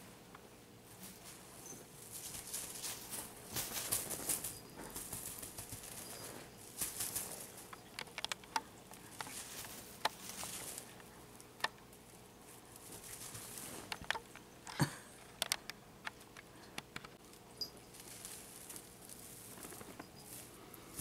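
Young Bengal kitten moving about: soft pattering, scratching and rustling, with scattered sharp clicks and taps. The loudest tap comes about two-thirds of the way through.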